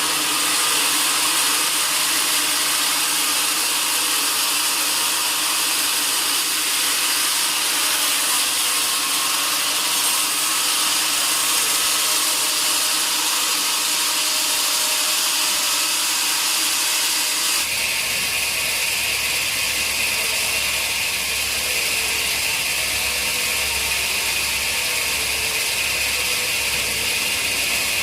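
Sawmill machinery running, a steady loud hiss of a saw at work. About two-thirds of the way through, the sound changes suddenly to a steadier whine with a low pulsing beneath it.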